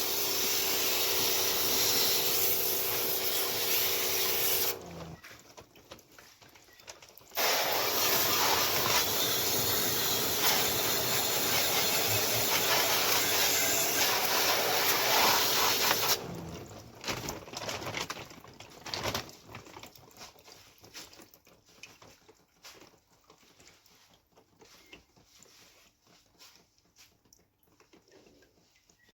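Hissing jet of spray on an air conditioner's indoor unit during cleaning, running in two long bursts with a short break between, followed by scattered faint ticks and drips.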